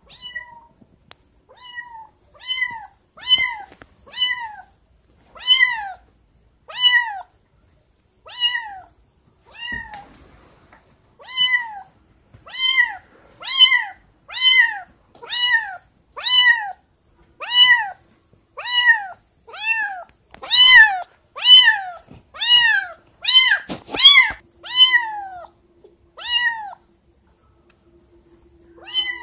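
Tabby kitten meowing over and over, about one high cry a second, each rising then falling in pitch, loudest past the middle and stopping near the end. These are a kitten's distress calls for its mother.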